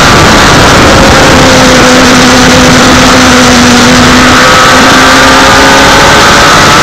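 Yamaha Thunderace 1000R's inline-four engine running at fairly steady revs while the bike is ridden, under heavy wind noise on the microphone.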